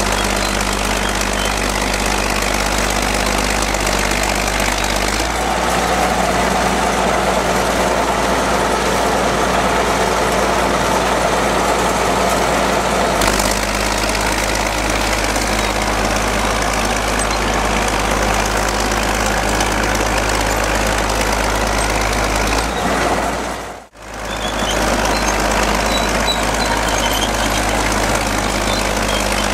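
Bulldozer's diesel engine running steadily, its note shifting about five seconds in and again about halfway through. It briefly cuts out about three-quarters of the way through.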